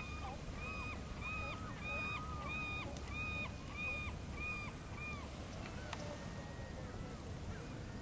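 A gull calling a rapid series of even, arched notes, about three a second, which stops about five seconds in. A single sharp click follows near six seconds, over a steady low rumble.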